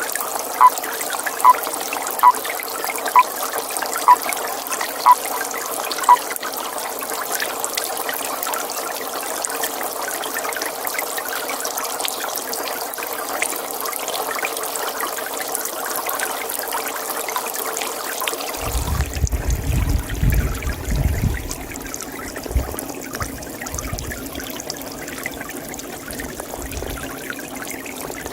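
Pond water trickling steadily, with a toad calling in short, evenly spaced notes about once a second for the first six seconds. About two-thirds of the way through the sound changes abruptly: a low rumble comes in and the trickling hiss dims.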